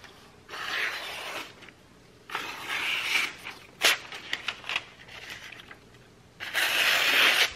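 Freshly sharpened kitchen knife slicing through thin telephone book paper in three swishing strokes of about a second each, the last the loudest, with a short click about four seconds in. The paper parts cleanly, the way a keen edge is supposed to cut.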